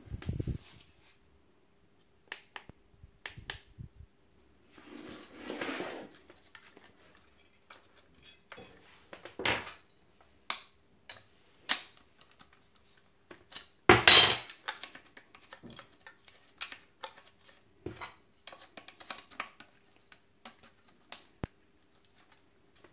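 Clicks, clinks and rattles of a Parkside PSTK 800 A1 jigsaw being handled and a metal saw blade being fitted into its blade holder, with one louder clatter a little past the middle.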